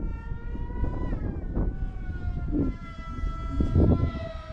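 Electric motor and propeller of a 3D-printed F-35C radio-controlled model plane, whining steadily in flight; the pitch drops about a second in. Wind buffets the microphone in gusts.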